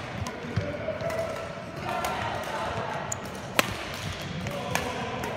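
Badminton rackets hitting a shuttlecock in a doubles rally: a few sharp smacks, the loudest about three and a half seconds in, over background voices.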